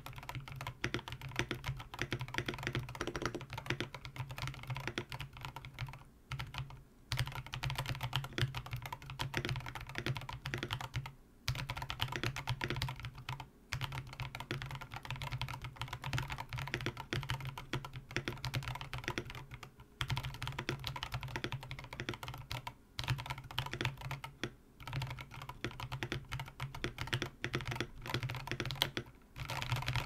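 Fast, continuous touch typing on a mechanical keyboard with stock Drop Holy Panda tactile switches, MT3 keycaps, a brass plate and a foam-filled acrylic case: a dense run of keystroke clacks, broken by short pauses a few times.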